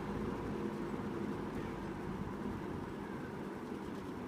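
1983–84 Sears (Lasko) Model 8121 20-inch box fan running on its low speed: a steady, nice and quiet hum of moving air with a light motor whine.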